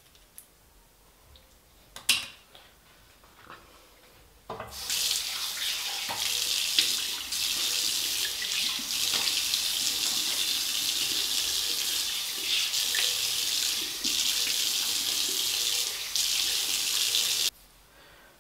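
Bathroom tap turned on about four seconds in, running steadily into the sink as he bends over it to rinse his face, then shut off sharply near the end. There is a small click before the water starts.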